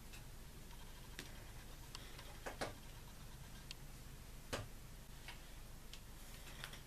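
A few light clicks and knocks as a small glass flask is handled and set down on a table, the loudest about two and a half and four and a half seconds in.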